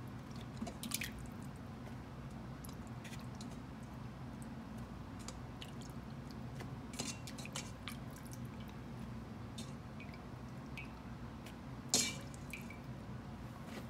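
Wet raw chicken wings being lifted out of rinse water and laid on a paper towel, with water dripping and soft squishes, plus a sharper click or knock about twelve seconds in. A steady low hum runs underneath.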